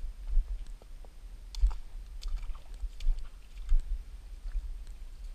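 Footsteps and scuffs on creek stones and dry leaves, with irregular small clicks and knocks over a constant low rumble.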